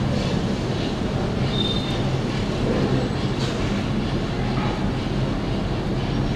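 Steady, loud mechanical rumble with a low hum underneath.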